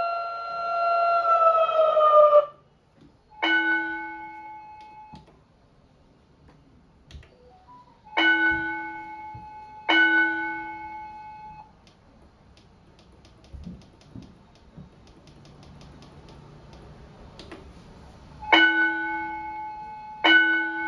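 Electronic school bell system: a steady siren tone slides down in pitch and stops a couple of seconds in. After it come single chime notes, all at the same pitch, each fading out: one, then a pair a few seconds later, then another pair near the end.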